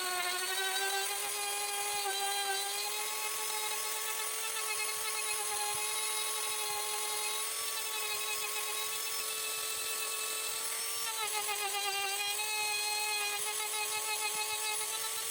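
Steady whine of a small electric power tool's motor, running continuously with its pitch wavering slightly and dipping briefly near the end.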